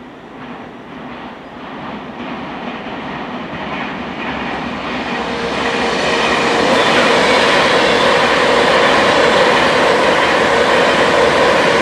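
A train approaching along the line, growing steadily louder over about six seconds, then running close by at a steady loud level.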